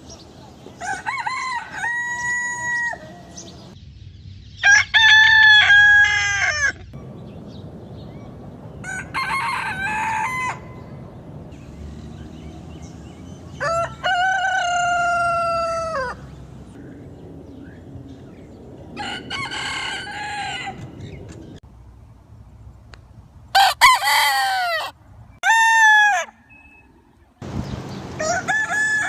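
Roosters crowing one after another, about eight separate crows each lasting one to two seconds, the background changing abruptly between some of them.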